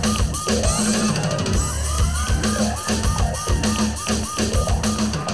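Breaking-news sting music from a TV newscast: a driving beat with drums, over a fast repeating short tone about four times a second, with rising sweeps in the middle.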